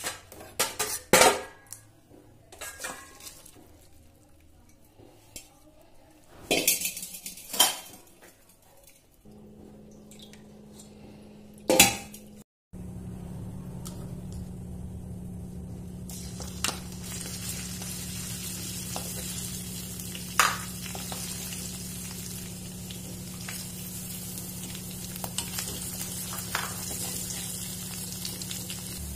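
A metal utensil clinking and knocking against a steel pot of boiled noodles, a few sharp clatters. After a short break, hot oil sizzling steadily in a wok with small crackles as sliced onion, green chilli and ginger fry in it.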